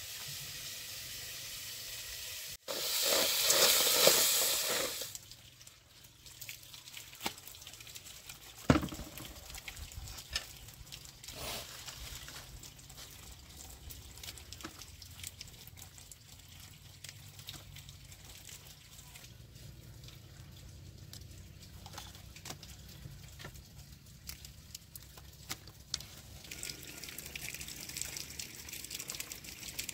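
Water pouring for about two seconds, the loudest sound, starting about three seconds in. After it come quieter scattered clicks, light splashes and rustles of leaves being handled in a plastic basin.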